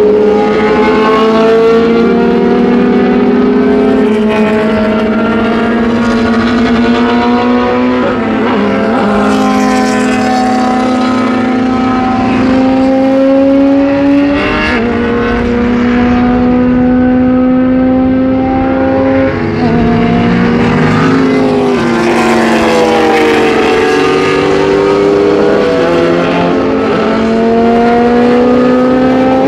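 Several historic 1960s–70s sports-prototype and GT racing cars accelerating away, loud engine notes from overlapping cars climbing in pitch and dropping back at each upshift, one car after another.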